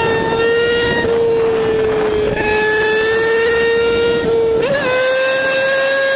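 Motorcycle engine running at high revs, a steady high-pitched drone over rushing wind noise. Its pitch jumps up briefly about four and a half seconds in and then holds slightly higher.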